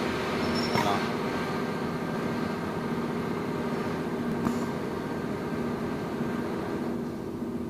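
Industrial flatlock cylinder-bed sewing machine's motor running with a steady hum, with a couple of light clicks from handling at the machine, one about a second in and one midway.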